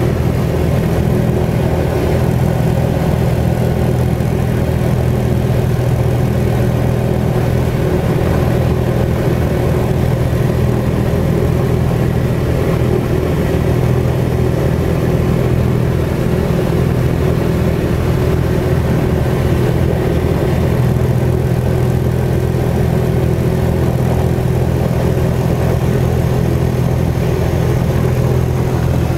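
Piston engines of a Lisunov Li-2, Shvetsov ASh-62IR nine-cylinder radials, running steadily at taxi power with their propellers turning: a loud, even drone with no change in revs.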